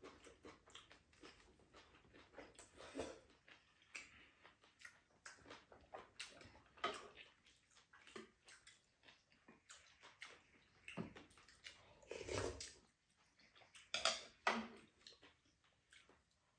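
Quiet mealtime sounds: chewing and lip smacks, with spoons and chopsticks clicking against bowls in a string of short irregular clicks, and a few louder knocks toward the end.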